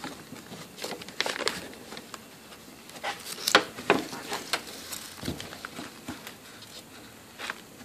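Scattered sharp plastic clicks and scrapes, with work gloves rustling, as a pick and gloved fingers work at the plastic tabs and fittings of a fuel pump module.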